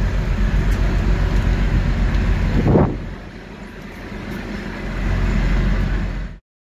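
A truck-mounted crane's engine runs steadily while it lifts a concrete bucket. About three seconds in there is a brief louder surge; the sound then dips, swells again, and cuts off suddenly.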